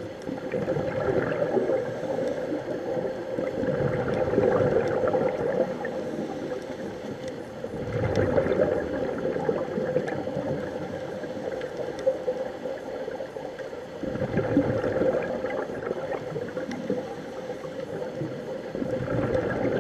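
Scuba divers breathing through their regulators underwater, with a gurgling rush of exhaled bubbles swelling every few seconds over a steady hum.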